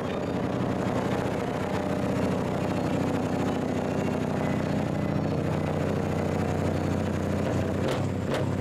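Scania truck engine idling steadily, a deep even hum, heard close to the exhaust pipes; near the end a series of sharp clicks or cracks begins.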